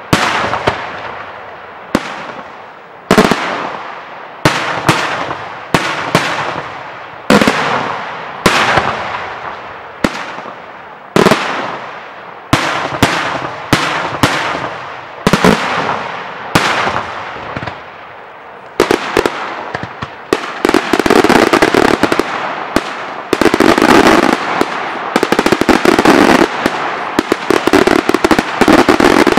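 Daytime aerial fireworks shells bursting with sharp bangs about once a second, each trailing off in a long echoing rumble. From about 19 seconds in, the bursts run together into a dense, rapid volley of bangs and crackling.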